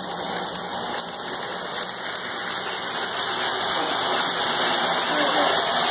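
O scale model passenger train running on three-rail tubular track: a steady whirring rumble of motor and wheels that grows slowly louder.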